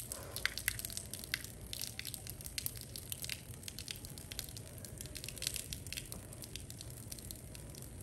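Pigeons pecking and stepping on a grain-strewn floor: a scatter of quick, light, irregular clicks and rustles, over a faint steady low hum.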